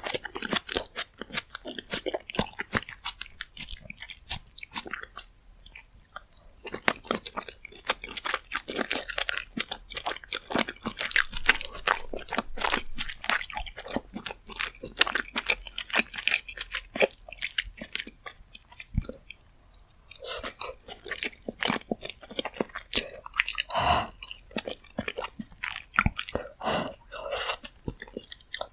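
Close-miked chewing and wet mouth sounds of someone eating rose jjimdak, a Korean braised chicken dish with glass noodles. The smacking and crunching clicks come irregularly and densely throughout.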